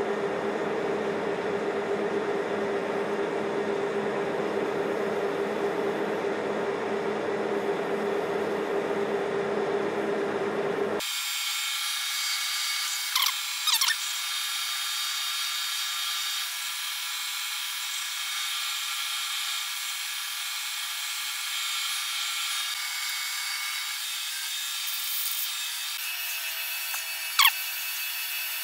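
Metal lathe spinning a workpiece while a drill held in the tailstock chuck bores into its centre. A steady machine hum changes abruptly about eleven seconds in to a thinner whine, with brief squeals a couple of seconds later and a sharp one near the end.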